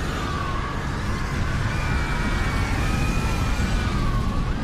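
Faint emergency sirens, several wavering tones overlapping, over a low steady rumble.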